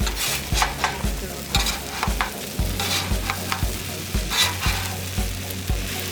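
A spatula scraping and stirring dakgalbi fried rice on a hot griddle, in short irregular strokes, with the food sizzling. Under it runs background music with a steady low beat.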